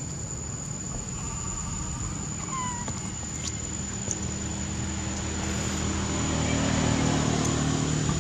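A motor vehicle's engine hums low and steady, growing louder over the second half, over a constant high insect whine. A couple of brief high squeaks come early on.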